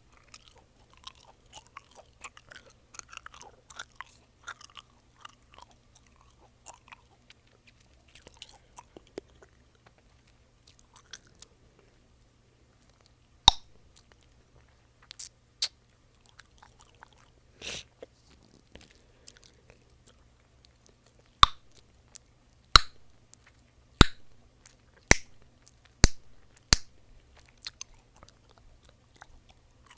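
Close-miked mouth chewing Mentos mint gum: soft, wet chewing clicks at first, then, from about halfway, a series of about ten sharp, loud gum pops a second or so apart.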